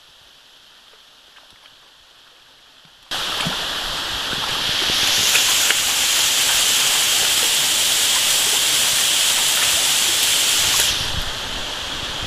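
Narrow waterfall spilling down a rock face into a pool, a steady rushing of falling water. It comes in abruptly about three seconds in after a much fainter start, and eases slightly near the end.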